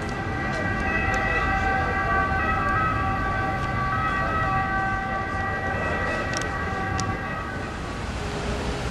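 A sustained high tone made of several pitches at once sounds over city street traffic noise. It starts about a second in, shifts slightly in pitch midway, and stops near the end.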